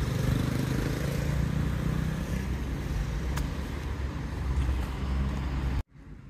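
A motor vehicle's engine running close by, a steady low rumble that cuts off abruptly near the end, leaving faint outdoor background.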